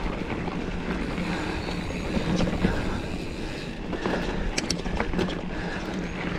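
Mountain bike rolling over a dirt trail: a steady rumble of tyres, with the chain and frame rattling and a few sharp knocks from bumps about four and a half to five seconds in.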